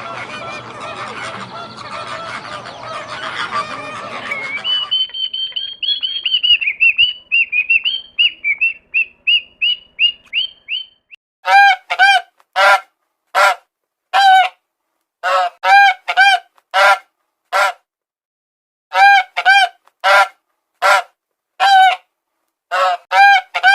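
Bird calls: a dense din of many calls at first, then a quick run of short, high chirps, then a long series of separate loud calls, one or two a second.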